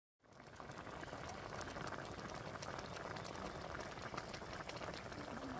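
A pot of sauce boiling around a whole fish, a steady dense bubbling and popping that fades in from silence just after the start.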